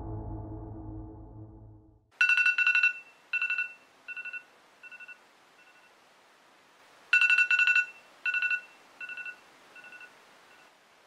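Electronic telephone ring, a rapid trill on two high tones, sounding twice about five seconds apart. Each ring is followed by fainter repeats that die away, like an echo.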